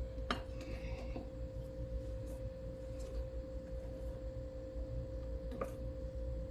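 Steady hum with one constant mid-pitched tone, with a couple of light clicks, one near the start and one near the end.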